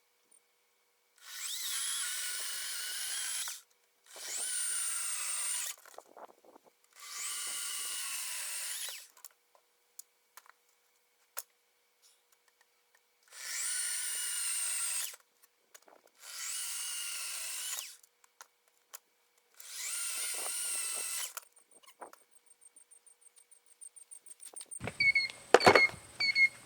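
GreenWorks 40-volt battery chainsaw's electric motor running in six short bursts of about two seconds each, with quiet gaps between, as the battery runs down to dead. Near the end, a rapid high ticking and a few clicks and knocks.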